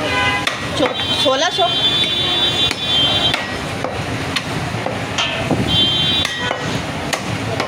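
Heavy meat cleaver chopping goat meat on a wooden log chopping block: a string of irregular sharp chops, roughly one or two a second.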